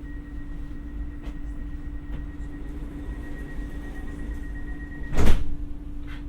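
Alstom Coradia Nordic X60 electric commuter train running, heard from inside the car: a steady low rumble and hum with a faint high whine that stops about five seconds in. Right after the whine stops comes one short loud bang.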